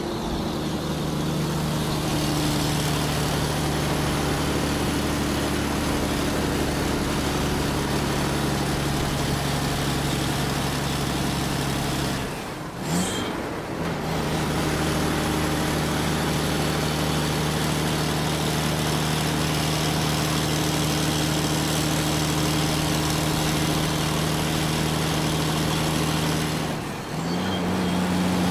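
Excavator's diesel engine running at a steady pitch with a faint high whine above it. The sound dips out briefly about halfway through and again near the end, coming back slightly higher in pitch after the second break.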